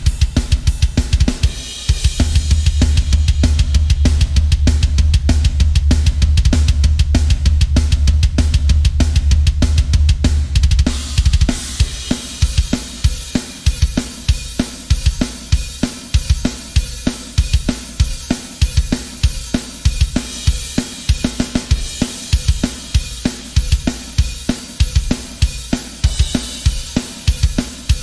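Sampled drum kit (EZdrummer 2) played from MIDI, heavy metal drumming. From about two seconds in, a rapid, unbroken bass drum run sits under cymbals and snare. About eleven seconds in it drops out, leaving a sparser, regular beat with cymbals.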